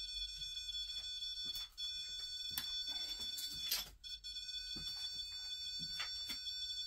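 Steady high-pitched electronic whine of several tones held together, with irregular clicks and crackles over it. It cuts out briefly twice, about a quarter of the way in and again just after a louder crackle a little past halfway.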